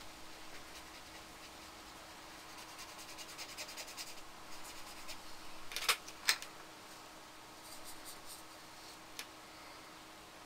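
Fine paintbrush dabbing and stroking on paper, a run of light, quick scratchy ticks, with two sharp clicks close together about six seconds in and a lighter one near the end. A faint steady hum lies underneath.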